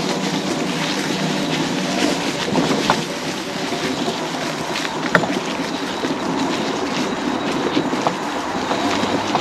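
Electric mobility scooter running over a rough dirt trail: a steady motor hum under rattling, with scattered sharp knocks as it jolts over bumps.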